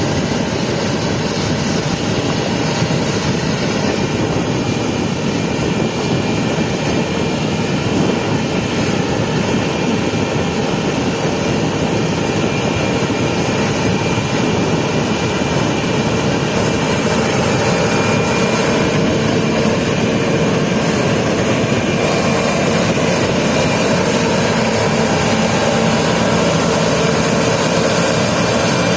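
Combine harvester running steadily while harvesting peas: a loud, even machine drone with a faint high whine.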